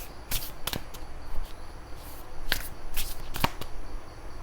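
A Sacred Traveler oracle card deck being shuffled by hand, with a few sharp, irregularly spaced card snaps.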